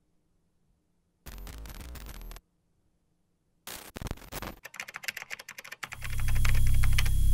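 Sound effects for an animated title: two short bursts of rapid mechanical clicking separated by silence, then near the end a loud deep drone swelling up.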